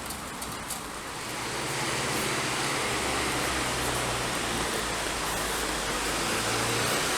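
A motor vehicle engine running with a steady low hum over a background hiss. It swells about a second in and then holds level.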